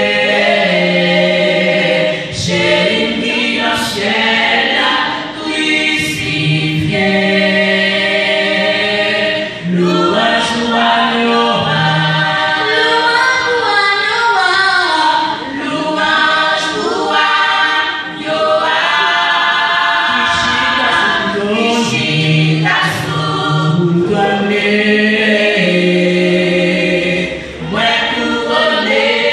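Women's vocal group singing a gospel song together in harmony, with held notes and short breaks between phrases.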